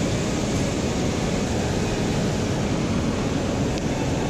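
Steady rushing of high river water pouring over a spillway, an even noise without breaks.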